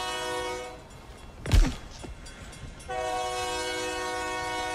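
Train horn sounding a steady multi-note chord as a sound effect within a song's instrumental break. It breaks off under a second in; a single loud thud comes about a second and a half in, and the horn chord returns about three seconds in.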